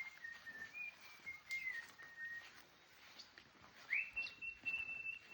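Long, high whistled tones held at nearly one pitch, with small steps up and down; the first dies away about halfway through, and a second swoops up about four seconds in and holds a little higher. Faint scattered ticks underneath.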